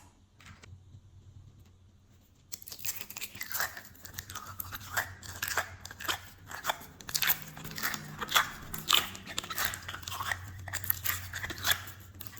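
Glossy slime being squished and worked by hand, giving dense, irregular sticky clicks and crackling pops that start about two and a half seconds in after a quiet opening.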